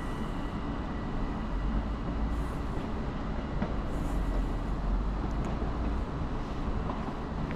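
ÖBB Talent electric multiple unit at the platform, giving a steady low rumble with a hiss over it.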